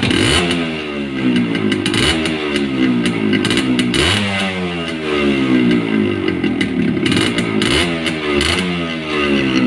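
Yamaha RX100's two-stroke single-cylinder engine revved through an exhaust altered with silver foil in the muffler. The throttle is blipped sharply about four times, and after each blip the revs fall back.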